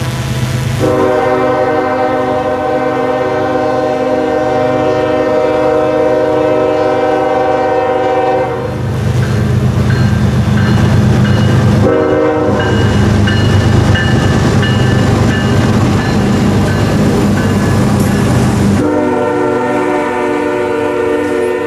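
Diesel locomotive sounding its air horn: one long blast, a short blast about twelve seconds in, and another long blast near the end. Between the blasts the locomotive's diesel engine rumbles loudly as the train passes.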